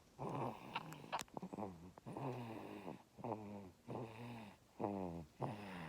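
Snoring: a pitched snore on each breath, about one a second, each dropping in pitch as it goes.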